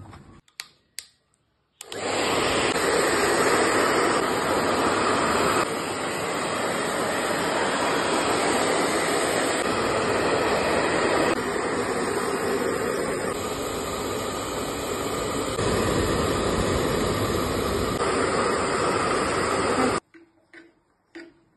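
Pet grooming blow dryer blowing a steady rushing stream of air, starting about two seconds in and cutting off suddenly near the end.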